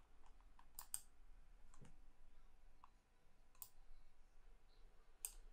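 A few faint, scattered computer mouse clicks, one of them a quick double click about a second in.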